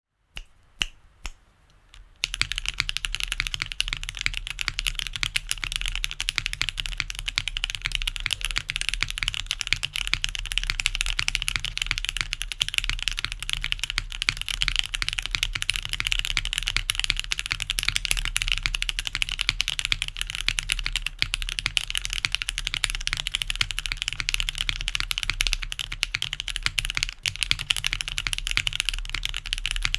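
Typing on a TGR 910 V2 mechanical keyboard with Cherry MX Hyperglide switches lubed with Krytox 205g0, GMK keycaps, on an aluminium plate in top mount. A few single keystrokes come first, then fast continuous typing from about two seconds in.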